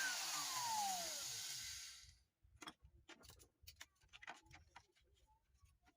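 Blender motor spinning down after being switched off: a whine falling in pitch and a hiss fading out over about two seconds, then faint scattered ticks.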